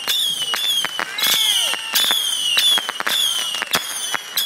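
Ground firework on the pavement firing a rapid string of whistling shots: about two whistles a second, each dropping slightly in pitch, with sharp cracks and pops between them.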